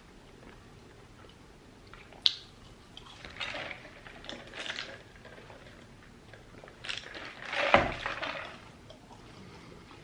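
Close-up eating sounds: a sharp click about two seconds in, then a few short mouth sounds, the loudest near the end.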